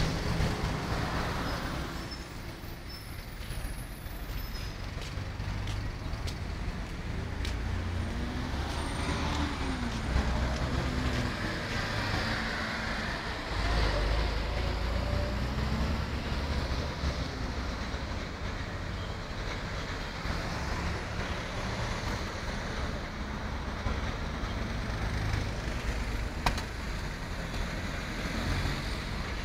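Busy road traffic: a steady rumble of car and van engines and tyre noise, with vehicles passing close by.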